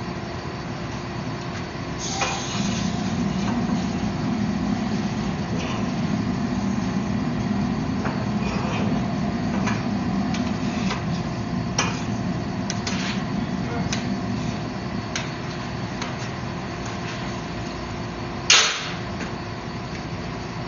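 A steady machine hum in a forge workshop comes up about two seconds in. Scattered light clicks and knocks sound over it, and one sharp metallic knock near the end is the loudest sound.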